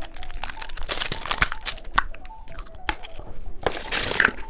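Plastic candy wrapper crinkling and tearing in irregular crackles as it is handled and opened.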